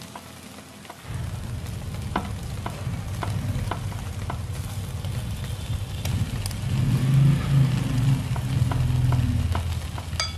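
Basted chicken pieces sizzling over glowing charcoal, with scattered crackles. From about a second in, a louder low steady hum runs underneath.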